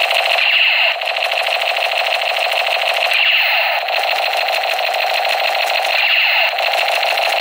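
Battery-powered light-and-sound toy gun (a Superior 'Special Gun') playing its electronic rapid-fire effect through its small speaker: a fast buzzing stutter with sweeping tones, repeating in a cycle about every three seconds.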